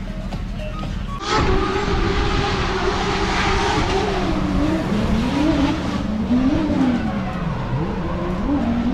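Drift car running hard on track: the sound comes in suddenly about a second in, then the engine revs rise and fall again and again over tyre screech.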